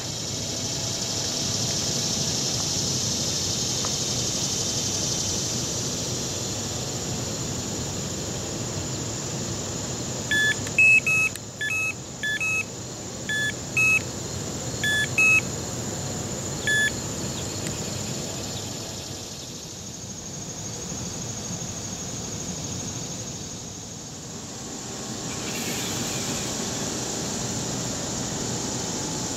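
Carp fishing electronic bite alarm sounding a run of about ten short beeps at two pitches over several seconds, the sign of a fish taking line on the rod. A steady hiss lies under it.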